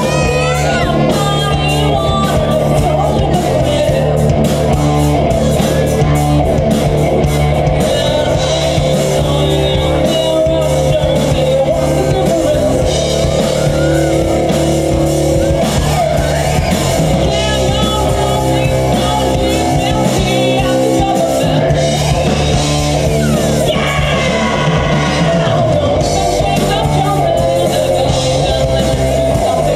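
Live rock band playing loud with singing over electric guitars, bass and drums. The lowest notes drop out for a moment about two-thirds of the way through, then come back in.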